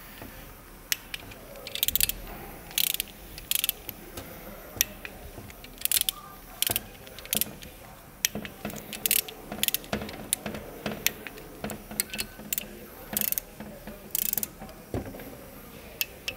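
Ratcheting torque wrench clicking in short runs as the main bearing bolts in the crankshaft bedplate of a Kia G4NA engine are tightened, at the first stage of 20 N·m.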